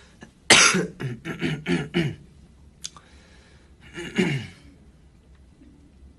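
A man's voice making loud wordless vocal sounds in short bursts: a sharp burst and a quick run of syllables in the first two seconds, then another brief burst falling in pitch about four seconds in.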